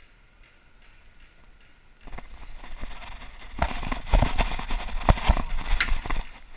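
Footsteps of a person running, with gear and the body-worn camera jostling, starting about two seconds in and carrying several heavy thuds.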